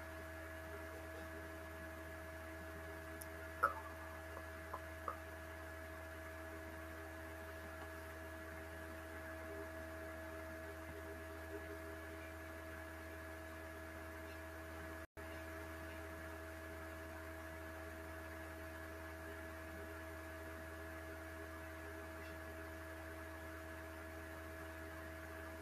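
Faint room tone dominated by a steady electrical hum made of several constant tones. A few faint short clicks come about four to five seconds in, and the sound drops out for an instant about midway.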